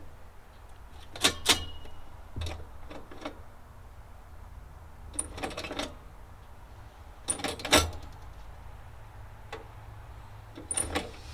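Scattered sharp clicks and clanks of parts being handled, in small clusters a few seconds apart, over a faint low hum: hands working inside an opened kerosene heater while tracing an igniter fault.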